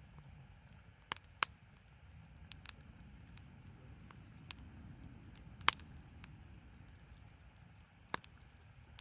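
Firewood burning in a small folding fire stove, crackling with scattered sharp pops over a low steady rumble; the loudest pop comes a little past halfway.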